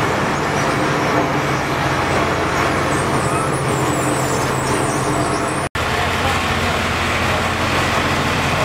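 Steady low hum of engines and machinery inside a road tunnel, with a split-second dropout a little past halfway.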